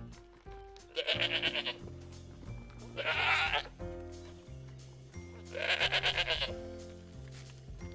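A goat bleating three times, the first and last bleats with a rapid quavering tremble, over background music.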